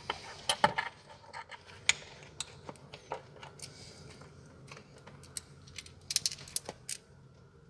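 Small metallic clicks and clinks of a loosened steel bolt being turned out and handled by hand, with a quick cluster about half a second in and another just after six seconds.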